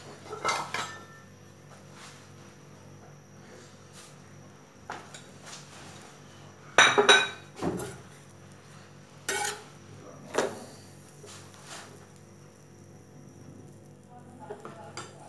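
Kitchen utensils and dishes being handled: scattered knocks and clinks, the loudest a quick cluster about seven seconds in, over a faint steady hum.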